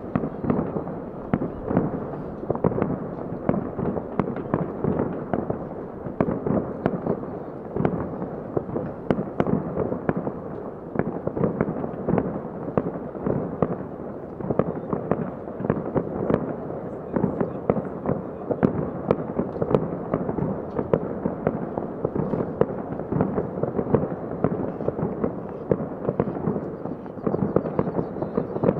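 Many aerial fireworks going off at once: a dense, unbroken run of bangs and crackles as shells and rockets burst overhead.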